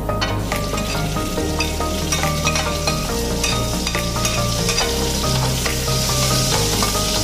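Chopped onion and garlic sizzling in hot oil in a stainless steel frying pan after being dropped in, the sizzle growing louder toward the end as they are stirred with a spatula, with light scraping clicks. Background music plays throughout.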